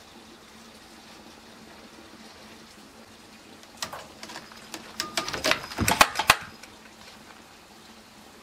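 Small bell on a cat's collar jingling and rattling in an irregular burst of about two and a half seconds as the cat moves, loudest near the end of the burst.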